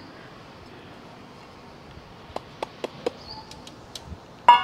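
Light clicks and taps of steel kitchen utensils, a steel tin and bowl being handled, over a faint outdoor hiss with a few short bird chirps. Near the end comes a louder clank of metal that rings briefly.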